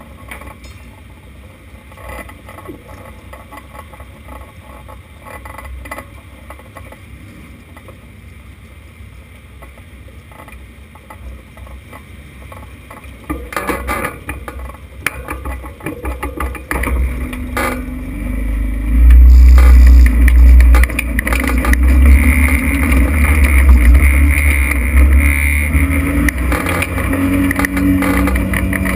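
Open-wheel dirt race car heard from the cockpit: a low rumble at first, noise building from about halfway through, then the engine fires about two-thirds of the way in and runs loud with a deep rumble and a steady pitch that climbs slightly.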